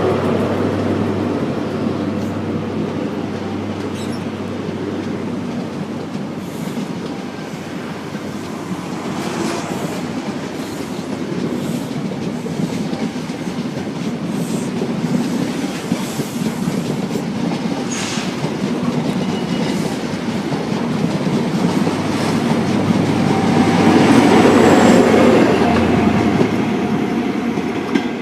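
Train running through the station, its wheels clicking over rail joints, the noise swelling louder about three-quarters of the way through.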